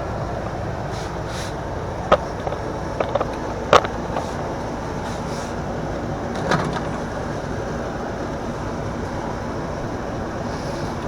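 A dish being handled and set down: a few sharp knocks and clatters in the first seven seconds, over a steady hum.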